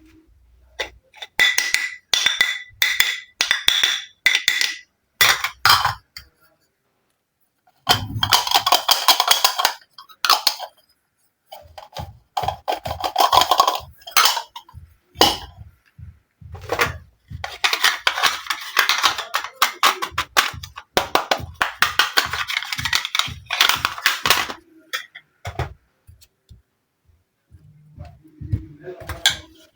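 Miniature toy dishes and utensils from a kitchen tea party set clinking and tapping as they are handled. Some clinks in the first few seconds ring with a clear tone, and longer stretches of rapid clicking and rattling follow.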